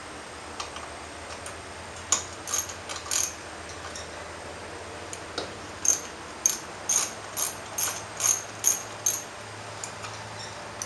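Hand socket ratchet clicking in short back-and-forth strokes as a bolt is worked loose: a few strokes about two seconds in, then a steady run of about eight, roughly two and a half a second, from about six seconds in.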